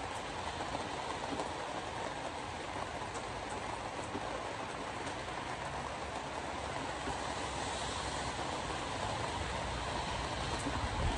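Steady road and tyre noise of a car driving on a wet road, heard from inside the cabin, with a few faint ticks of raindrops striking the windshield.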